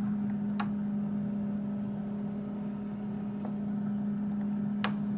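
Instant Vortex Plus air fryer running its test cycle: a steady electric hum from its fan. A couple of light clicks come about half a second in and near the end.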